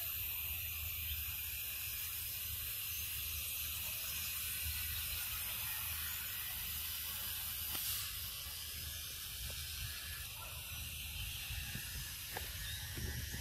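Steady, high hissing drone of an insect chorus, with a low rumble underneath; the drone gets a little quieter about eight seconds in.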